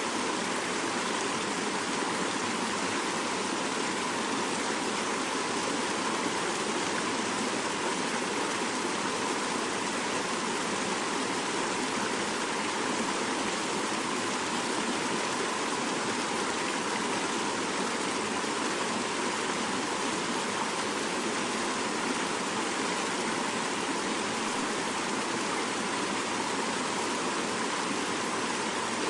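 Fast-flowing mountain river rushing steadily over rocks, a continuous even rush of water without breaks.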